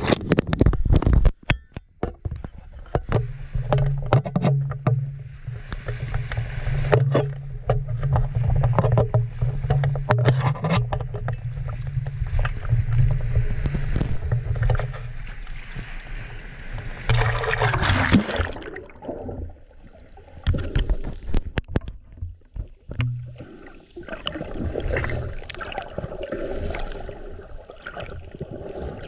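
Action camera in a waterproof housing being handled and dipped in shallow sea water: knocks and splashes against the case, the loudest burst about two-thirds through. Under them a steady low hum runs for about fifteen seconds, then drops away.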